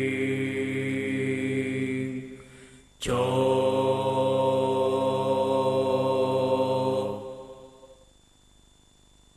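Chant-like droning music accompanying a cingcowong dance: held notes over a pulsing low tone. It fades out about two seconds in, comes back suddenly with a sharp struck attack about three seconds in, and dies away near the end, leaving only a faint background.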